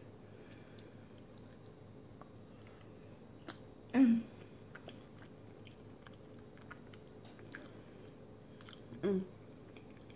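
Close-miked mouth-closed chewing of a mouthful of cheesy lasagna, faint wet clicks and smacks. Two short, louder voiced sounds from the eater come about four and nine seconds in.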